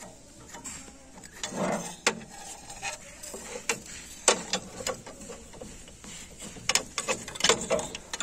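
Irregular metallic clinks and knocks of a steel hand tool worked against the bolts and casing of a power tiller's gearbox, coming faster in the second half.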